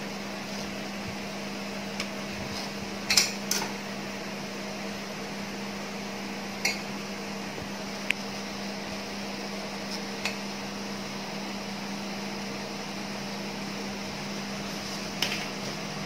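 Stainless-steel mesh strainer knocking against the rim of a steel pot as boiled rice is tipped in: several scattered sharp metal knocks, the loudest a pair about three seconds in, over a steady low hum.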